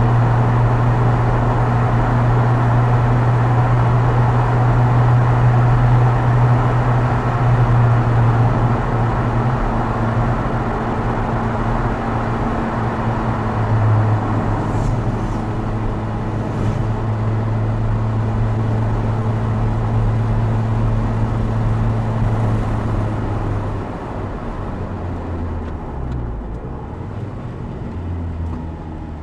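Opel Speedster Turbo's mid-mounted turbocharged four-cylinder engine pulling at steady revs, with tyre and road noise, heard from behind the seats of the open car. For the first half it echoes inside a road tunnel. About three-quarters of the way through the revs fall and the sound gets quieter.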